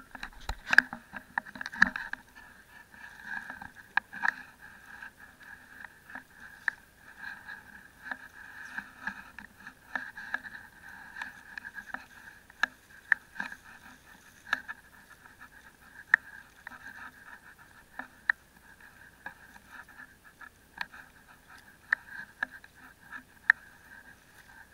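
Hands hauling a wet fishing net out of the sea: a steady muffled sloshing of water, broken by scattered sharp clicks and knocks.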